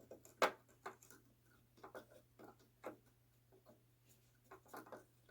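Irregular small clicks and plastic taps of a RAM stick being handled and lined up in a desktop motherboard's memory slot, the sharpest about half a second in.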